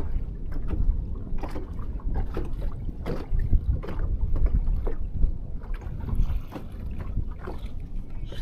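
Wind buffeting the microphone in a steady low rumble, with small waves slapping irregularly against the boat's hull.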